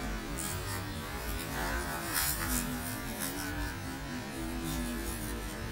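A low steady hum with a few faint held tones that change pitch now and then.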